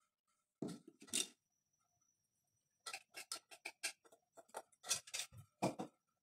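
Two knocks near the start, then a wooden spoon stirring black sesame into soy milk in a stainless steel pot, knocking and scraping against the pot's side in a rapid run of ticks, about five a second.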